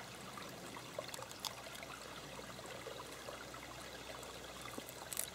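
Shallow rocky stream trickling along gently, not too loud, with a few faint clicks over it.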